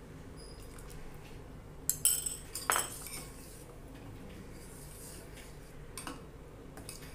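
Steel spoon and ladle clinking against a stainless-steel pot of hot milk being stirred with lemon water to curdle it. A cluster of sharp clinks comes about two seconds in, another near three seconds and a single one about six seconds in.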